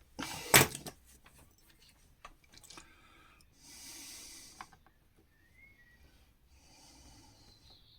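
Bench-work handling noises while desoldering a potentiometer from a circuit board: two loud knocks right at the start, then faint small clicks and a short hiss about four seconds in.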